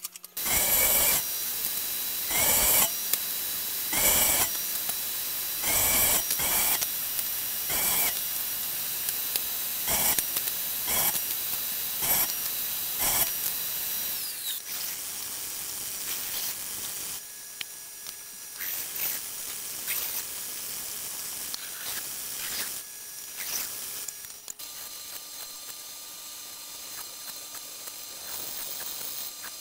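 A hand plane shaving a hardwood strip: about a dozen quick hissing strokes over the first half. After that comes quieter, irregular shop work, and in the last few seconds a bandsaw runs with a steady hum.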